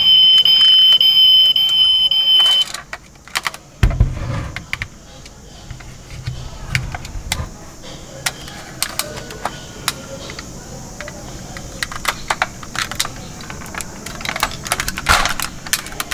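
A steady, high electronic tone cuts off about two and a half seconds in. It gives way to irregular sharp clicks and rattles of plastic toy trucks being handled, with a dull thump about four seconds in.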